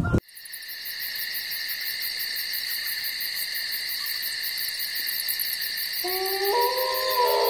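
Night insect chorus, a steady high-pitched trilling with a fast pulse. About six seconds in, an animal's long howl starts and steps up in pitch partway through.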